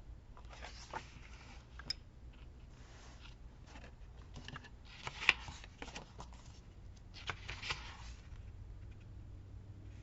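Paper and sticker sheets being handled: soft intermittent rustling with a few sharp taps, the sharpest about five seconds in.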